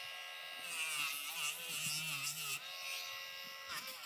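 Handheld rotary nail grinder running with a steady whine, grinding a dog's toenail. For about two seconds its pitch wavers and dips as the sanding bit bears on the nail.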